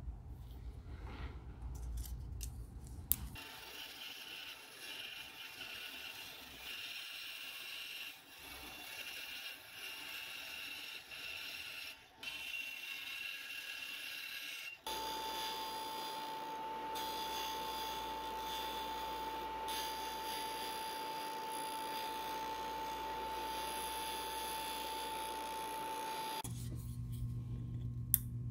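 A felt-tip marker scratches on polycarbonate sheet for a few seconds. Then a band saw cuts out a Lexan polycarbonate lure lip, a scratchy cutting noise with a thin whine. About halfway through it gives way to a steadier machine sound with one constant whine, which stops a couple of seconds before the end.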